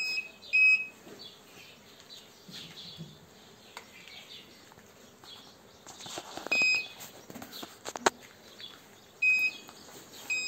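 Handheld cattle metal detector giving short, high, identical beeps as it is passed along a cow's belly. There are two beeps at the start, single ones at about six and a half and nine seconds, and one at the very end. Each beep marks metal under the probe, in a cow checked for swallowed metal (hardware disease). A sharp click comes near eight seconds.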